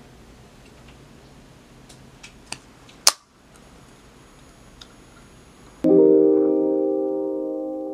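Pull-tab of a canned coffee drink opened: a few light clicks as a fingernail lifts the tab, then one sharp pop about three seconds in. Near the end, soft piano background music comes in and is the loudest sound.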